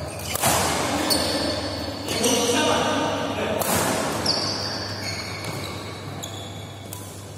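Badminton rally: several sharp racket strikes on the shuttlecock, with shoes squeaking on the court floor.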